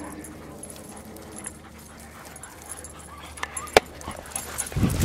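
East German working-line German Shepherds whining. From about three and a half seconds in there are sharp knocks and scuffs of the camera being handled while climbing onto a rock: one loud sharp click, then a low thump near the end.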